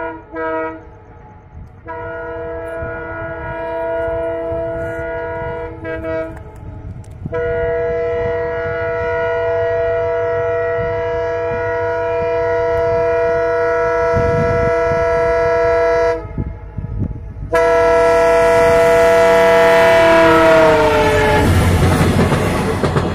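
Diesel locomotive horn sounding a short blast and then three long blasts as the train approaches. About 20 seconds in, the horn's pitch drops as the locomotive passes close by, and the heavy rumble and clatter of the engine and wheels on the track swell to the loudest point near the end.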